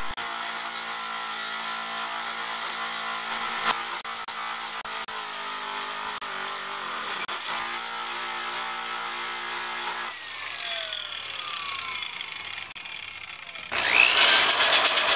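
Small electric angle grinder running steadily as it grinds down a bicycle frame tube where bracket nubs were cut off. About ten seconds in it cuts off and winds down with a falling pitch. Near the end a louder electric drill with a Roloc abrasive disc starts scouring rust off a metal frame tube.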